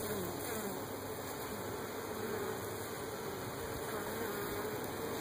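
Honey bees buzzing: a steady hum from many bees at the hive, its pitch wavering slightly as individual bees move close.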